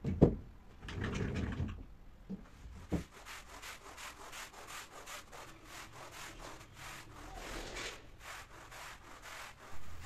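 A thump at the start, then a long-handled stiff-bristled carpet brush scrubbing a rug in repeated strokes, a few a second, raking out lint, fuzz and hair from the pile.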